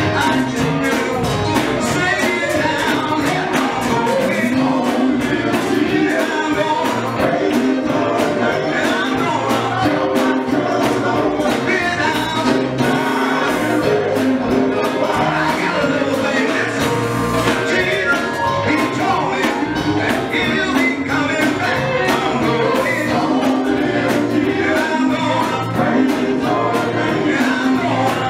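Live gospel singing: a male lead voice with group harmony over a full band with drums, at a steady beat.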